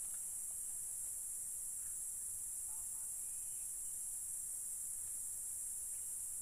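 Insects in the riverside forest keeping up a steady, high-pitched chorus.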